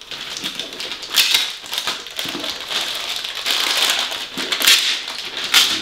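Glossy Christmas wrapping paper being crinkled and torn off a present by hand, in an irregular rustle with several louder rips.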